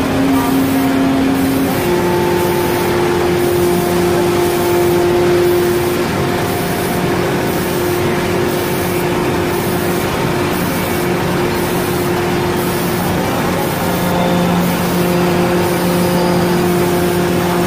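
CNC router jigsaw's spindle driving a thin router bit through a thick wooden board: a loud, steady machine whine and cutting noise. Its hum pitch steps a few times as the cut goes on.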